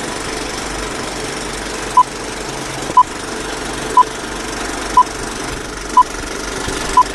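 Film-leader countdown sound effect: a steady clattering of an old film projector running, with a short beep once a second, six beeps from about two seconds in.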